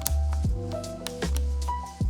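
Background music with a beat: sharp drum hits with a falling low bass under sustained pitched notes.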